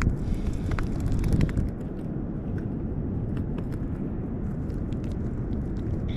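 Wind rumbling on the microphone outdoors, with scattered small clicks; it gusts a little louder in the first second and a half.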